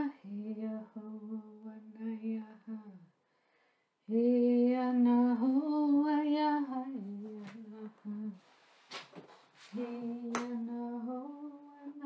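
A woman's voice chanting without words in long held notes that step between pitches, with a short pause partway through. A few sharp clicks come near the end.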